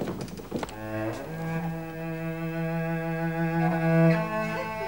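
Slow, mournful background music of bowed strings: a low cello-like note held under a sustained melody, coming in about a second in.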